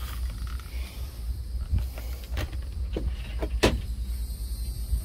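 Hand trigger spray bottle squirting in several short hissy bursts, about four of them between two and four seconds in, over wind rumbling on the microphone.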